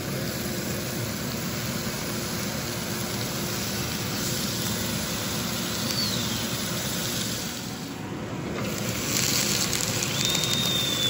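Marinated chicken breasts sizzling in a hot nonstick frying pan, cooking in the marinade's own oil. The sizzle grows louder about nine seconds in as steam rises off the pan.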